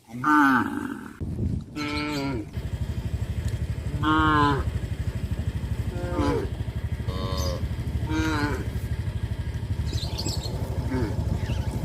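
Cattle mooing in short, repeated calls, about seven over the span, each rising and falling in pitch. A small engine starts idling with a rapid, steady beat underneath about two and a half seconds in.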